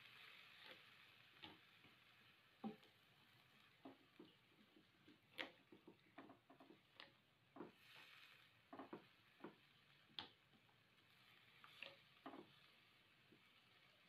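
Silicone spatula stirring cassava leaves and meat in a nonstick wok: faint, irregular taps and scrapes against the pan over a faint frying sizzle that comes and goes.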